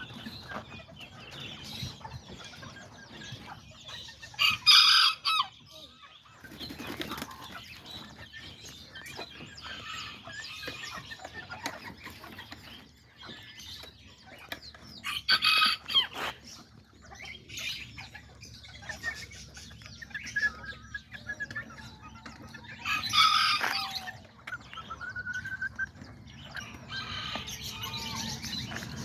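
Small bantam chickens (kikirikis) clucking and calling steadily, with roosters crowing loudly three times, each crow about a second long.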